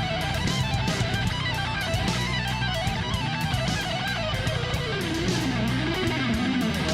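Background music: a guitar melody over bass with a steady beat.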